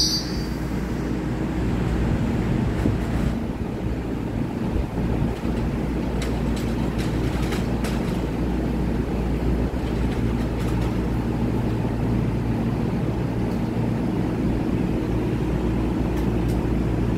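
Steady low hum and rumble of a TRA EMU3000 electric multiple unit standing at the platform with its on-board equipment running, echoing in an underground station. A few faint ticks come in the middle.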